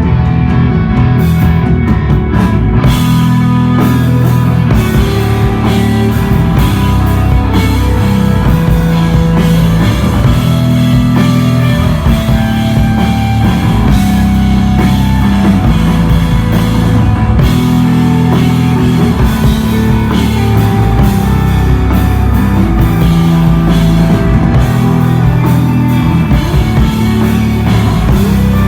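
Live desert rock band playing loud: electric guitar, bass guitar and drum kit, with held bass notes under the guitar. The cymbals and drums come in harder about three seconds in.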